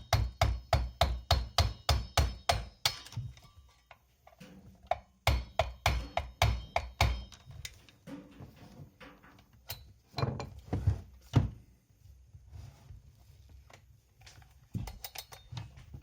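Rapid hammer taps with a slight metallic ring, about four a second, coming in several bursts. They sound like a punch or screwdriver being driven against a chainsaw clutch to tighten it onto the crankshaft without a clutch tool.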